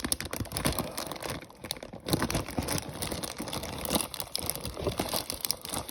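Plastic packaging crinkling and crackling as it is peeled and pulled off a synthesizer, with irregular rustles and small snaps; the plastic is stuck on and comes away with effort.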